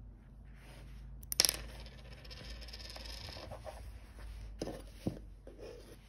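A small silver-oxide watch button cell (size 371) dropped from tweezers onto a wooden tabletop, landing with a sharp metallic clink about a second and a half in. Two softer clicks follow near the end.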